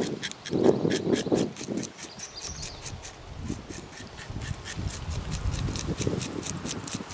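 Knife scraping the scales off a northern pike, in quick short strokes several a second.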